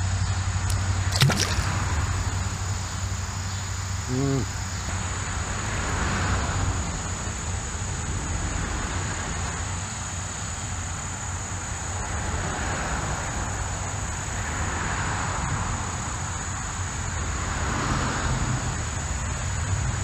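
Traffic crossing the four-lane highway bridge overhead: a steady wash of tyre noise that swells every few seconds as vehicles pass, under a thin, steady high-pitched whine. A single sharp click about a second in.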